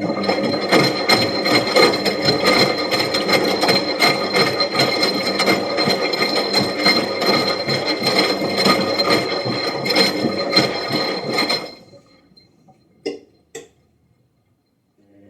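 Washing machine running: a steady motor hum and whine under fast rattling and knocking, which stops suddenly about twelve seconds in. Two short clicks follow a second or so later.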